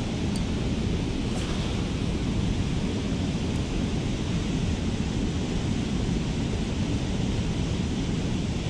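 Steady low rushing of wind buffeting the microphone, with a few faint ticks in the first few seconds.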